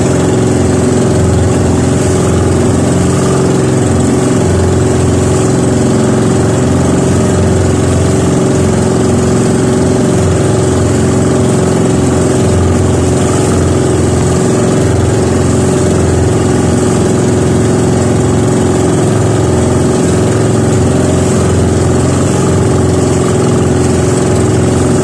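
Small outrigger fishing boat's gasoline engine running steadily at cruising speed, a constant drone with one strong unchanging tone, over the hiss of water splashing off the hull.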